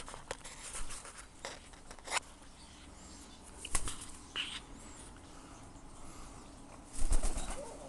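African grey parrot flapping its wings in several short flurries. The largest flurry comes about seven seconds in.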